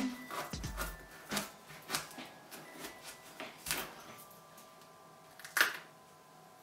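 Kitchen knife cutting a yellow courgette lengthwise in half on a plastic cutting board: a few scattered short knocks and scrapes of the blade through the flesh and onto the board, the loudest near the end.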